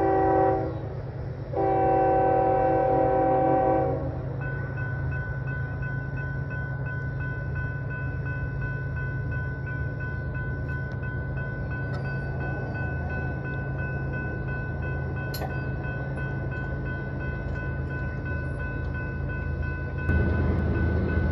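Diesel freight locomotive horn sounding a short blast, then a longer one, for the grade crossing; then the crossing signal's bell rings steadily while the locomotive's engine rumbles, growing louder near the end as the train closes in.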